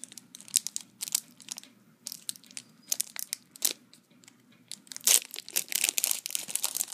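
Foil Yu-Gi-Oh booster pack wrapper crinkling in the hands: scattered crackles at first, then dense crinkling from about five seconds in as the pack is worked open.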